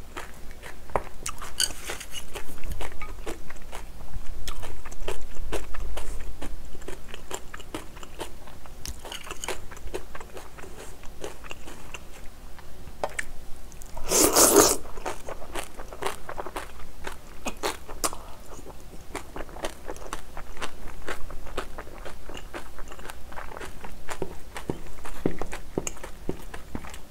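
Close-miked eating: chewing spicy curry rice and crunching cabbage kimchi, with many small clicks of the spoon and mouth. A louder crunching bite comes about halfway through as a piece of kimchi goes into the mouth.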